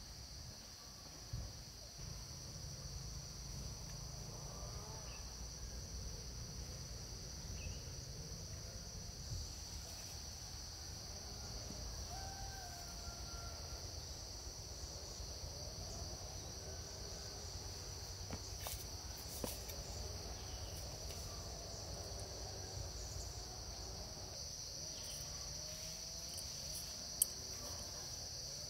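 Insects, crickets or similar, keep up a steady high-pitched drone over a low rumble. Faint chirps come and go, and there are a few sharp clicks, the loudest near the end.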